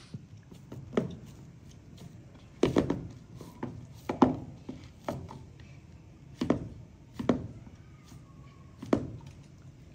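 Wheat-flour dough being kneaded by hand in a terracotta bowl: irregular thuds and slaps, about eight in all, as the dough is pressed and punched down against the bowl. The loudest comes about four seconds in.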